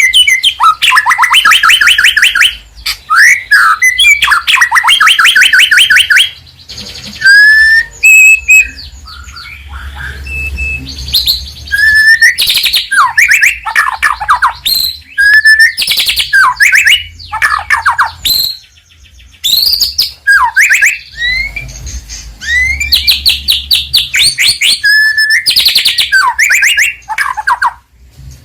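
White-rumped shama (murai batu) singing loudly and vigorously. Its song is a varied run of fast trills and rapid repeated notes, mixed with sharp rising and falling whistles.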